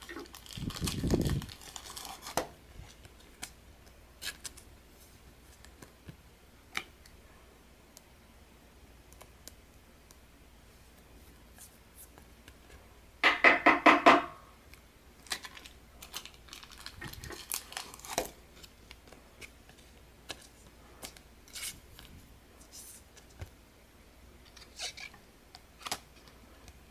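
Trading cards and plastic card sleeves being handled: scattered light clicks and soft rustles, with a low thump of handling in the first two seconds. About halfway through, one brief pitched sound pulses for about a second and is the loudest thing heard.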